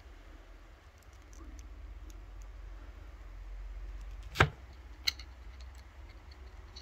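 Handling a metal clutch basket on a wooden worktop: a sharp knock about four seconds in and a lighter click just after it, over a faint low hum.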